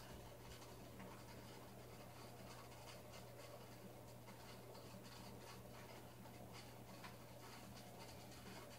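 Near silence: a faint steady low hum with light, irregular crackling ticks.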